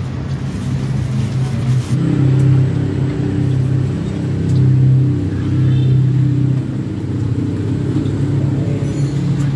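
A motor vehicle's engine running close by, a steady low hum whose pitch steps up about two seconds in and drops back near seven seconds.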